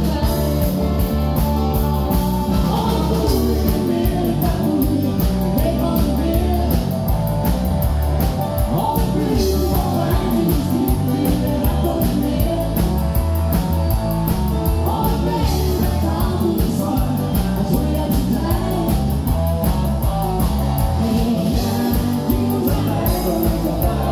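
Live band music with a woman singing over guitar and a steady beat, loud throughout.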